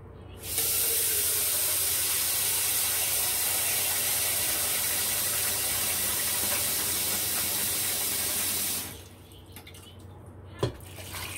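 Kitchen tap running steadily for about eight seconds, filling a bowl with water, then shut off. A single light knock follows near the end.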